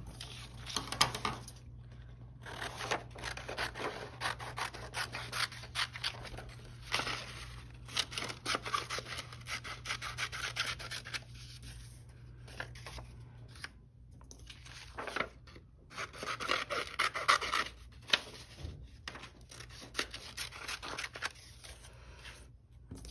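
Small scissors cutting through construction paper in runs of crisp snips with short pauses between, along with the paper being moved and rustled on the table.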